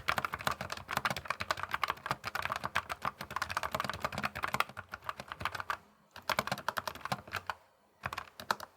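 Typing on a Logitech MX Mechanical Mini keyboard with tactile quiet switches: a rapid, steady run of keystrokes, with short pauses about six seconds in and again near the end.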